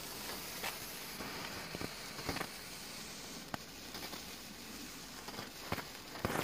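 Crazy Chicken novelty firework burning: a steady hiss from its smoke and spark fountain, broken by scattered small crackles and ticks, while it pushes out its egg.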